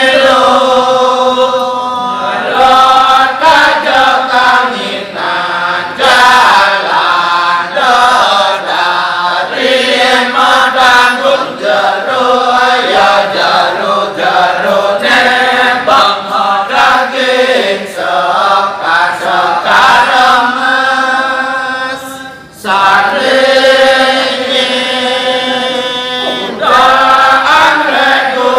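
Balinese kecak chorus of many men's voices chanting and singing together in held, pitched lines. It briefly drops away about three-quarters of the way through, then comes back in full.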